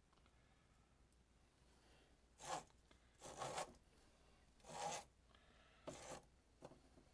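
Steel drain-snake cable scraping as it is pulled and fed by hand between the drain cleanout and the power auger's drum, the motor off: four short rasps a second or so apart, and a smaller one near the end.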